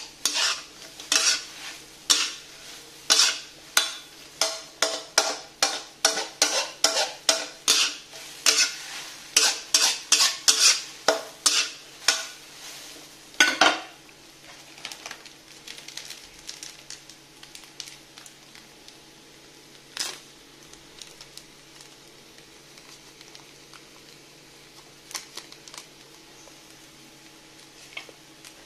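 A utensil knocks and scrapes against a pan as food is stirred, about two sharp ringing knocks a second, ending with a louder one about halfway through. After that there is only a faint steady hum and an occasional light clink.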